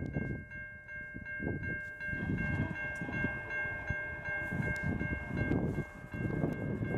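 Railway level crossing warning bells ringing steadily, with low gusts of wind buffeting the microphone.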